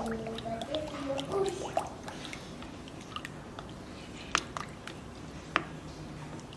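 Silicone spatula stirring a thin, wet flour-and-water yeast batter in a glass bowl, giving a wet squishing and scraping, with a few sharp clicks where the spatula knocks the glass, two of them in the second half.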